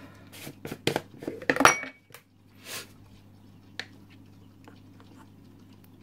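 Hard plastic clicks and clatter as the screw lid of a plastic formula jar is twisted off and set down and a plastic bowl is picked up. The clicks come in a quick run over the first two seconds, the loudest just before two seconds in, followed by a soft rustle and a single tap.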